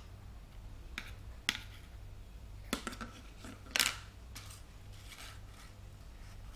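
Scattered light clicks and knocks of a plastic toy shofar being handled and set down on a tiled floor, about eight over the first five seconds, the loudest near four seconds in. The shofar is not blown.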